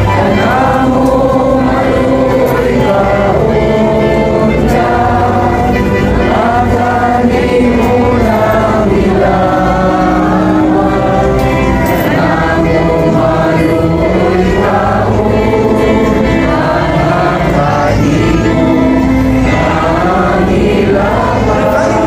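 A choir singing a hymn, with a large crowd of worshippers singing along; the sung lines run on without a break.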